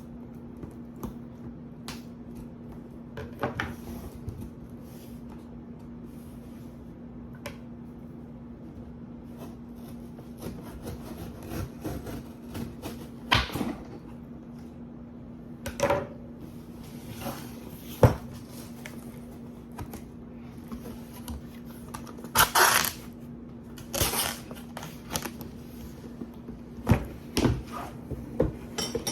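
Handling of a boxed Apple MacBook Air and its packaging: scattered knocks, taps and rustles, a few louder than the rest, over a steady low hum.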